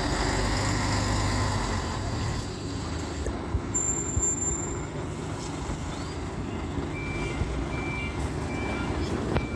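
Fire truck's diesel engine running in street traffic, with a tram passing at the start. From about seven seconds in, a fire appliance's reversing beeper sounds, short high beeps about twice a second.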